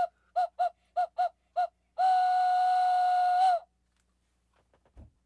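Homemade Q-whistle, made of a cut water pipe, plastic plate and straw, blown through the nose: five quick toots on one steady note, then a single long held note of about a second and a half. Faint handling clicks near the end.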